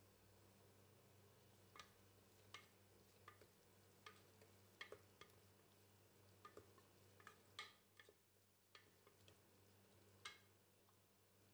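Wooden spatula knocking and scraping against the sides of an aluminium pressure cooker while stirring a fried onion and tomato masala: faint, irregular clicks and taps, starting about two seconds in, over a low steady hum.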